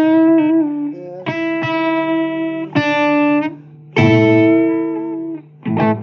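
Blues record with a guitar solo: four long, held notes with a slight upward bend at the first, then quicker, shorter notes near the end.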